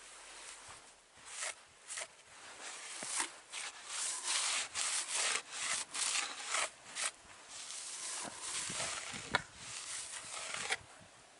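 A gloved hand rubbing and brushing crusted snow and ice off a sign plate, a run of scraping swishes that stops abruptly near the end.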